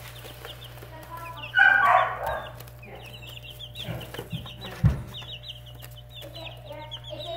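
Young chicks peeping, a steady stream of short, high, falling peeps. A louder, harsher call comes about a second and a half in, and a dull thump sounds about five seconds in, over a steady low hum.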